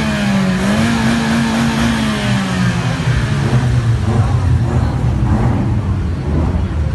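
A car engine with a loud exhaust held at high revs while the car spins in the dirt. The pitch dips briefly about half a second in, then falls to a lower, steadier engine note a little before the halfway point.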